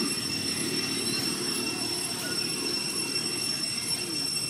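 Steady high-pitched drone of insects, typical of cicadas, holding several even tones, over a low steady rumble.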